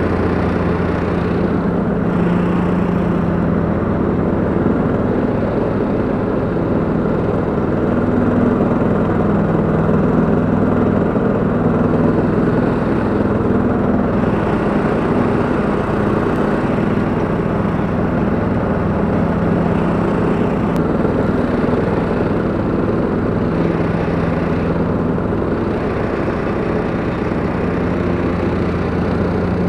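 Petrol engines of a Husqvarna LTH 174 lawn tractor and a towed ATV flail mower running steadily while mowing grass, an even, unbroken engine drone.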